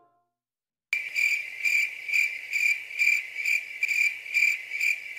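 Cricket chirping sound effect: a steady run of evenly spaced high chirps, about two a second, starting after a second of dead silence. It is the stock comic cue for an awkward silence.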